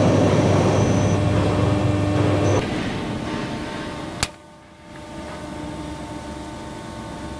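Hydraulic press brake running a cycle: the pump and machine work loudly with a steady hum and whine for about two and a half seconds, then stop abruptly. A sharp click follows about four seconds in, and the machine's motor hums on quietly.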